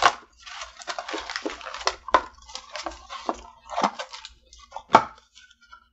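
Cardboard food box being torn open along its pull-tab strip: crackly tearing and crinkling with a few sharp snaps, the loudest about five seconds in.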